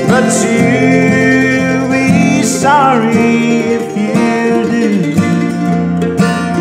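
Bluegrass duet: an F-style mandolin and an acoustic guitar playing together, with a man singing over them.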